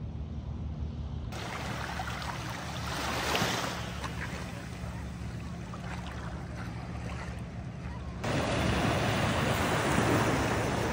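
Rushing noise of water or wind over a steady low motor hum. The sound changes abruptly twice, about a second in and again near the end, where it becomes louder.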